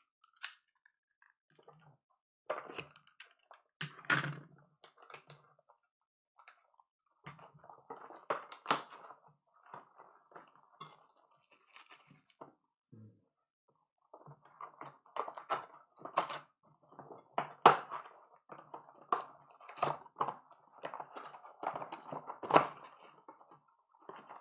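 Trading card box and pack wrappers being opened: on-and-off crinkling and tearing of plastic wrapping with scattered sharp clicks and taps, in stretches with short pauses between.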